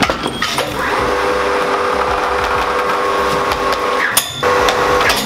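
Electric hoist motor running with a steady hum, cutting out briefly about four seconds in, with scattered metal clanks.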